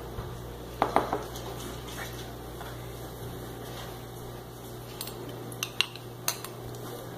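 Metal spoons clinking and scraping against glass jars and a plastic cup while food is spooned out: a few sharp clinks about a second in and a quick run of them near the end.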